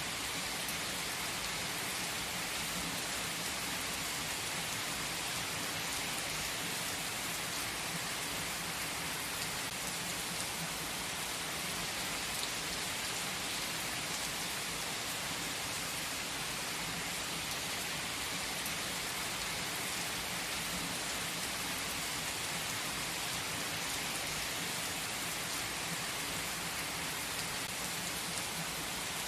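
Steady rain-like hiss: an even wash of noise, strongest in the upper range, with faint scattered ticks like drops, unchanging throughout.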